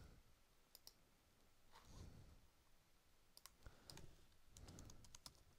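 Faint clicks of a computer mouse and keyboard: a few scattered clicks, then a quick run of key taps in the second half as a search is typed.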